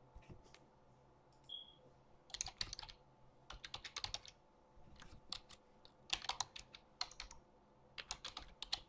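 Faint typing on a computer keyboard: quick keystroke clicks in four short runs separated by pauses of about a second.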